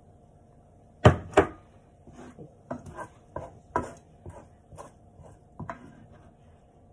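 Wooden spoon knocking and scraping in a frying pan while scooping up the sauce: two sharp knocks about a second in, then a run of lighter, uneven taps.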